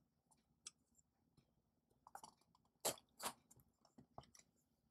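A knife cutting the seal on a phone's cardboard box: faint scattered clicks and scratches, with two louder crackles about a third of a second apart, about three seconds in.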